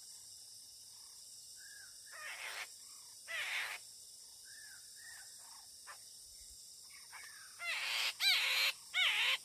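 Poksay mandarin (a laughingthrush) calling: soft short arched notes, broken by loud harsh calls about two and three seconds in and a run of three loud calls near the end. A steady high insect hiss runs underneath.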